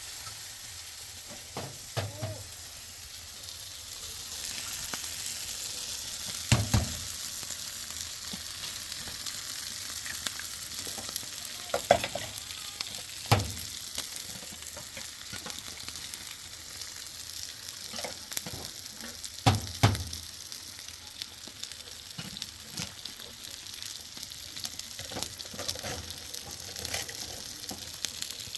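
Food sizzling steadily as it fries in a pan, stirred now and then, with a few sharp knocks of the utensil against the pan.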